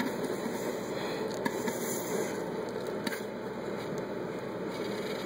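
Crankshaft of a rebuilt Mercury 60 hp two-stroke outboard block being turned by hand, with the piston sliding in its cylinder: a steady hiss with two faint clicks.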